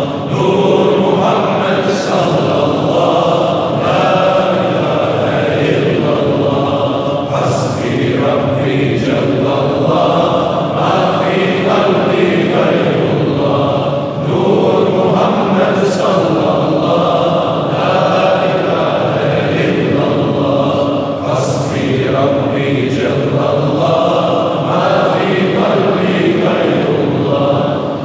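A congregation of men chanting zikr (Islamic dhikr) together, a steady repeated chant with no pauses and a brief hiss every few seconds.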